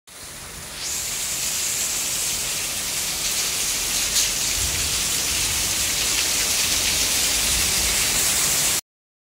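Heavy rain pouring down in a steady hiss. It builds over the first second and cuts off abruptly near the end.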